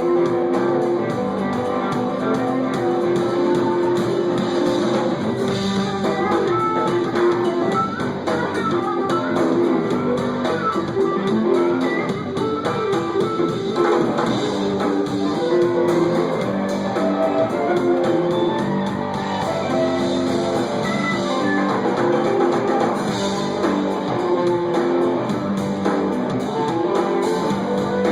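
Live band playing an instrumental passage, with guitar leading over bass.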